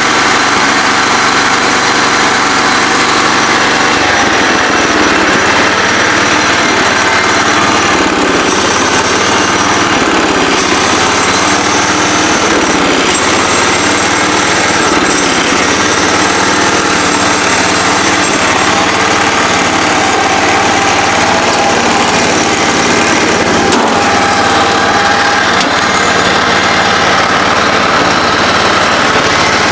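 Kohler K241 10 hp single-cylinder engine of a Ford riding lawn mower running steadily at a fast speed, its pitch wavering a little.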